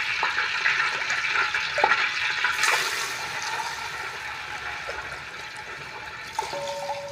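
Water that has just been poured into hot cooking oil in a large metal pot, sizzling and bubbling, the hiss fading gradually as it settles.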